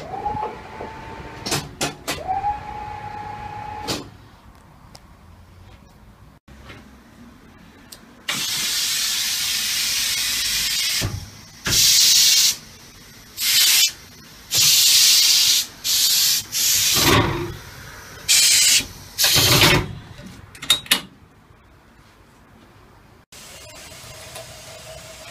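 GS Boxer Swing Pro20 tyre changer working: a motor hum rises and holds twice in the first few seconds, then a series of loud compressed-air hisses, some over two seconds long, from the pneumatic valves and cylinders that drive the clamp jaws and bead breaker. A fainter steady hum comes back near the end.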